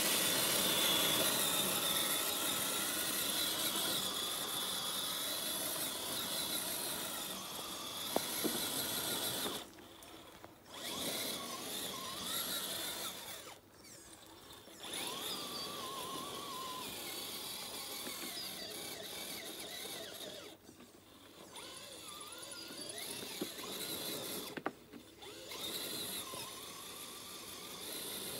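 Electric motor and gears of an RC crawler whirring as it drives, with a steady high whine and pitch that wavers with throttle, stopping briefly several times.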